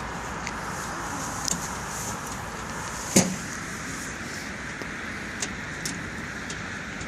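Steady hum of distant road traffic, with a few faint clicks and one sharper click about three seconds in.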